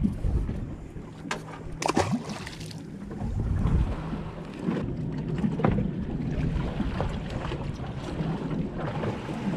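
Wind buffeting the microphone and water slapping against the hull of a small boat on open sea, with a few sharp knocks, the clearest about two seconds in.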